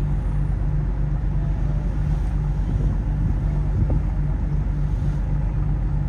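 Boat engine running steadily: a low drone that pulses about three times a second.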